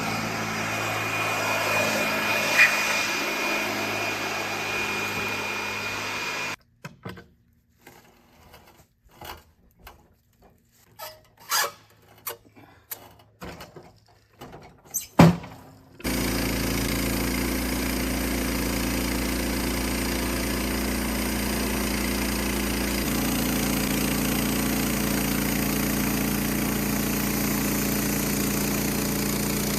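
The Norwood LM30 portable sawmill's gas engine running steadily from about 16 seconds in. Before that comes a quiet stretch with scattered knocks and clicks, the loudest near 15 seconds, and at the start a steady whirring hum with a high whine that stops abruptly about six seconds in.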